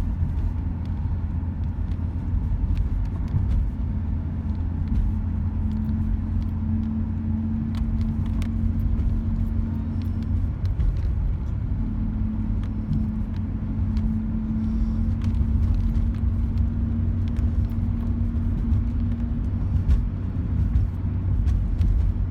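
A car driving along a road: steady low engine and tyre rumble with a constant hum that briefly drops out about halfway through.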